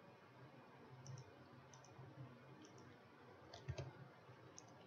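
Faint, scattered clicks of a computer mouse against near-silent room tone with a low hum, the loudest few clustered about three and a half seconds in.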